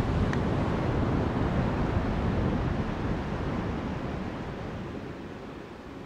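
Wind buffeting the microphone: a steady low rumble that eases off over the last couple of seconds.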